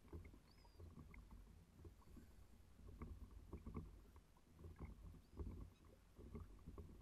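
Faint small waves lapping and knocking irregularly against a kayak hull, over a low rumble of wind on the microphone, with a few brief high calls from seabirds.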